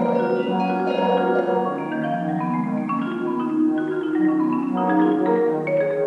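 Percussion ensemble playing with a solo marimba: a dense stream of overlapping pitched mallet notes.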